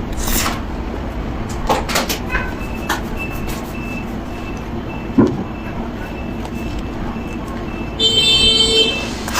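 Steady low rumble of road traffic or an idling vehicle, with a high electronic beep repeating two to three times a second for several seconds, like a vehicle's warning beeper. A short horn blast near the end.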